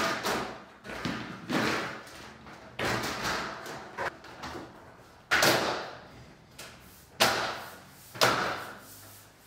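Stainless-steel dishwasher side panel being pulled up and pressed onto its locating tabs: a series of sheet-metal knocks and rattles, each trailing off, the loudest two about five and seven seconds in.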